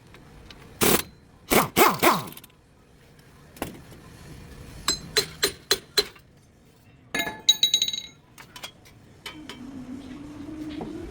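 Metal hand tools clinking and knocking during work on a front wheel bearing: a few loud knocks, then a quick run of clicks and a burst of ringing metal clinks, with a faint steady hum near the end.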